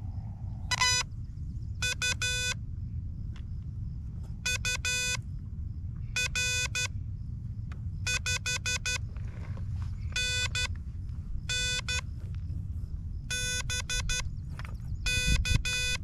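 Morse code (CW) tones from an Elecraft KH-1 handheld transceiver: one pitched beep keyed on and off in about nine quick groups of dits and dahs during a contact. A steady low rumble runs underneath.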